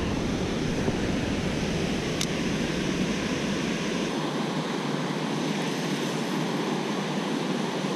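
Steady rush of river water pouring over a low mill dam spillway, with a brief high tick about two seconds in.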